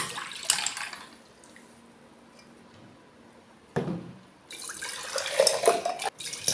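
Orange juice poured from a glass jug into a bowl, splashing, then after a pause and a short knock, poured back into the glass jug in a longer stream: mixing the juice by pouring it between vessels.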